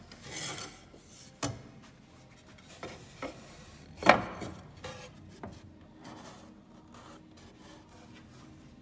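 Western red cedar seat slat being slid and set into place on the chair frame: a short rubbing slide of wood on wood, then a handful of light knocks, the loudest about four seconds in, as the slat is seated.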